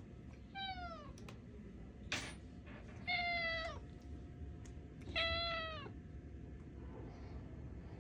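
A tuxedo cat meowing three times, about two seconds apart, each meow dropping in pitch at its end; the second and third are louder than the first. A short sharp sound falls between the first two meows.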